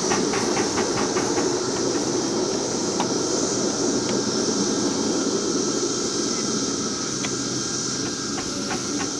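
Ride-on miniature live steam locomotive and its riding cars running along the track: a steady running hiss with light rhythmic clicking of the wheels over the rails, the clicking quickest in the first second or so and more scattered after.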